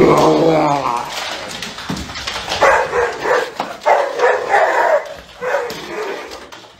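A dog barking: one loud call at the start, then a run of short barks that fades near the end.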